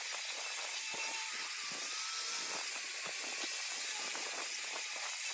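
Steady high hiss of a power tool working wood.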